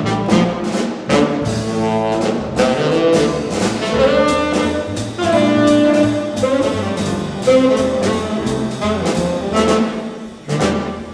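Live small-group jazz: a tenor saxophone plays a melodic line over upright bass and a drum kit with ride cymbal.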